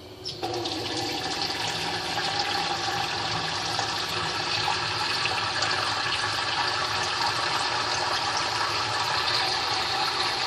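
Kitchen sink tap running steadily into a plastic bowl, the water starting about half a second in and filling the bowl.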